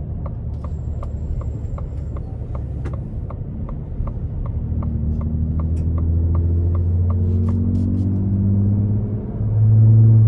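Ford F-150 Raptor's 3.5-litre twin-turbo V6 pulling under throttle, heard from inside the cab: its drone climbs in pitch and grows louder from about halfway, dips briefly near the end, then comes back louder. A turn signal ticks steadily, about three clicks a second, through most of it.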